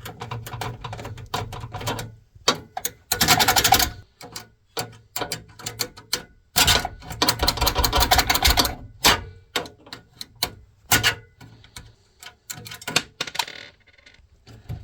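Hands taking parts out of a desktop workstation's case: many quick clicks and clacks of metal and plastic. Two longer rustling stretches come, one about three seconds in and one, about two seconds long, from near seven seconds.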